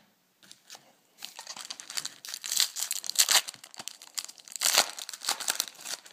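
Wrapper of a 2010 Bowman Chrome baseball card pack crinkling and tearing as it is opened, a dense crackle starting about a second in.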